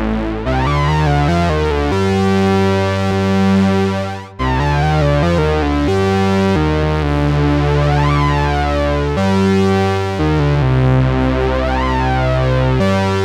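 Arturia SYNTHI V software synthesizer, an emulation of the EMS Synthi AKS, playing held, bass-heavy notes that change every second or two, with rising and falling sweeps in the upper range. The sound cuts out briefly about four seconds in, then carries on.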